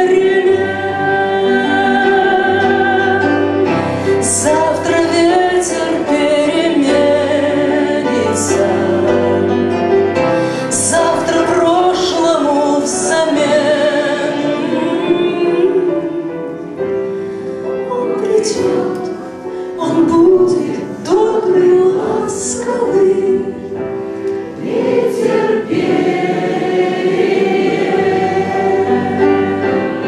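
A woman singing a slow ballad into a microphone, her voice wavering with vibrato, over instrumental accompaniment with held deep bass notes.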